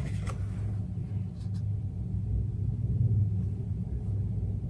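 Steady low hum with a couple of faint, soft clicks in the first two seconds.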